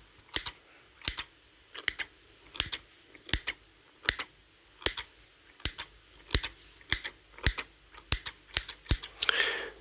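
Scissors snipping close to the microphone as an ASMR trigger: a steady run of crisp metal clicks, often doubled, about one and a half snips a second. A soft breathy sound comes just before the end.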